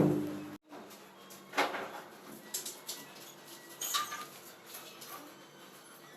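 A few separate light knocks, spaced a second or so apart, over faint background noise.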